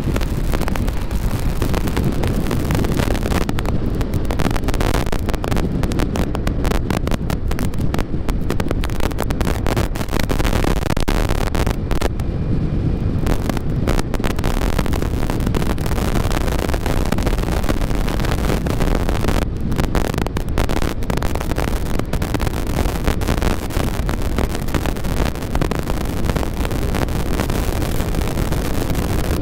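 Heavy wind noise on the microphone as a Yamaha XMAX 300 scooter runs at about 115 km/h, with its single-cylinder engine and road noise droning underneath, steady throughout.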